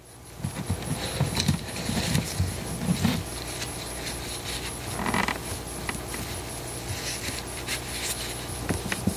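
Gloved hands wiping excess gasket sealant off a gasket with a rag on paper towels: irregular rubbing, rustling and light knocks, busiest in the first three seconds, over a steady low hum.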